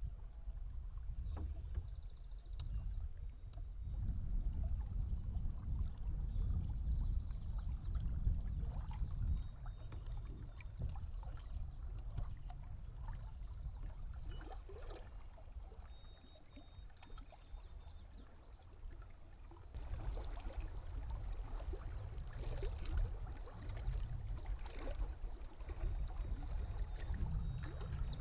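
Small waves lapping and sloshing against granite shoreline rock, a low rumble with faint scattered ticks, easing off for a few seconds past the middle.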